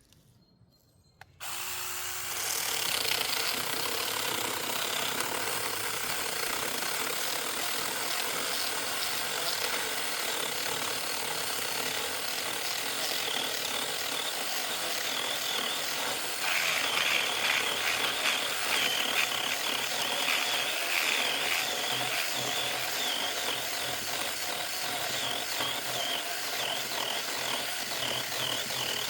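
Small battery-powered mini chainsaw starting up about a second in and running steadily as its chain cuts through wood. The cutting grows louder and rougher about halfway through.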